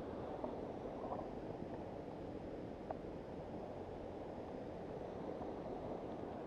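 Steady rushing wind noise with a few faint clicks.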